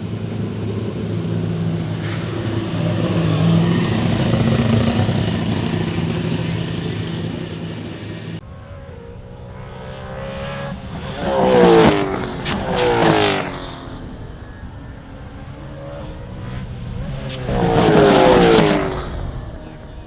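V8 Gen3 Supercars race cars running: first a steady, loud engine note for about eight seconds, then, after a cut, cars passing at speed, their engine note falling in pitch as they go by, twice.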